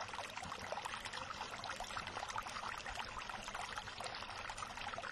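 Running water, a steady trickling and splashing like a small stream.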